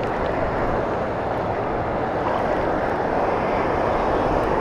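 Steady rushing noise of wind buffeting the camera's microphone, with a fluttering rumble underneath.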